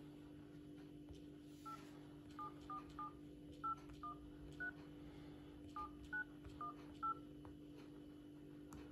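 Phone-dialer keypad tones from a Samsung smartphone as a number is typed in. About eleven short two-tone beeps come in two quick runs, with a brief pause between them.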